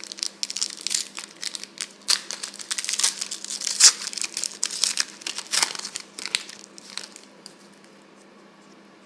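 Trading-card pack wrapper being torn open and crumpled by hand: a run of irregular crinkling and crackling that stops about seven and a half seconds in.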